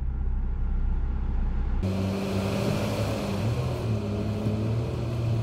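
Car engine running at idle, heard from inside the cabin; about two seconds in, the air-conditioning blower switches on with a sudden steady rushing hiss over the engine hum.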